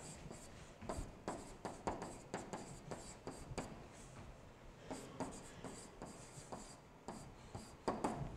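A stylus writing by hand on a digital whiteboard: faint, irregular taps and short scratches of pen strokes, a few per second, pausing briefly between words.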